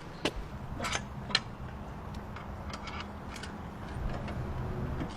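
Car jack being cranked with its hooked-on handle: a few irregular metallic clicks and ticks over a steady low hum.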